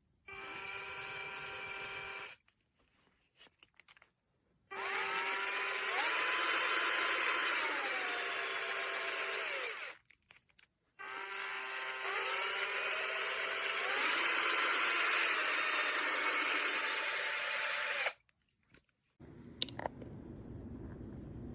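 DEKOPRO 12V cordless drill's motor running free in three bursts. The first is short and steady; in the two longer ones the whine rises and falls in pitch as the trigger speed changes.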